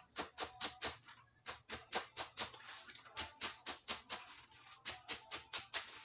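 Kitchen knife chopping mustard green stalks on a wooden cutting board: a quick, even run of chops, about four or five a second, with a short pause about a second in.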